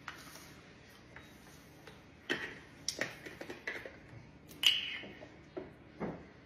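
Small knocks and clicks of a carton and a glass jar being handled on a granite countertop, with a sharper click about four and a half seconds in as the carton's plastic cap is twisted off.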